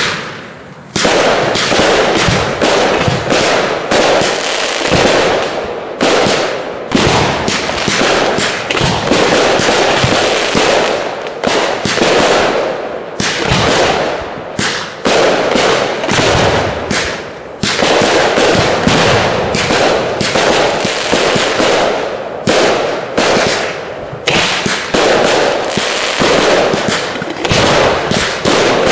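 Professional display fireworks going off in a dense, continuous run of bangs and crackle, with a few brief lulls between volleys.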